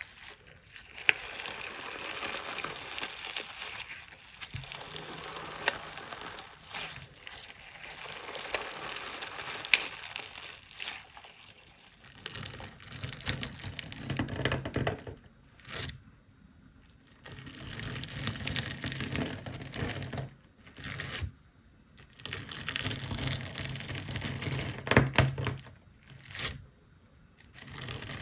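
Crunchy slime being squeezed and pressed by hand, giving a dense crackling with sharp pops and clicks. In the second half it comes in separate handfuls, with short quiet pauses between them.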